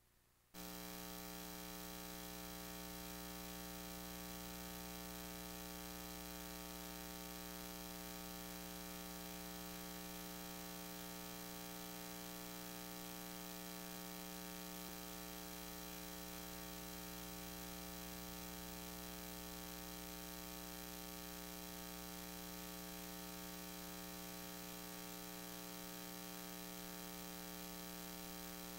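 Steady electrical mains hum and buzz with hiss, coming on abruptly about half a second in.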